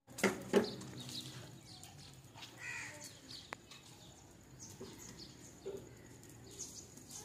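Birds chirping and calling, with two sharp knocks in the first second.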